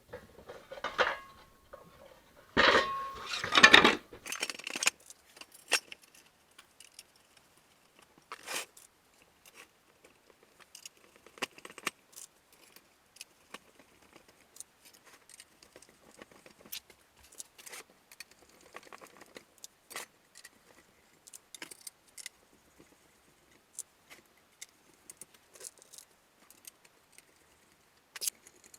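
Small hard parts being handled: scattered clicks and clinks, with a louder burst of clattering and scraping about three seconds in.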